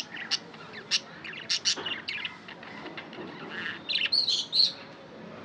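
Pet budgerigars chirping: a string of short, sharp chirps, then a quick burst of several calls about four seconds in.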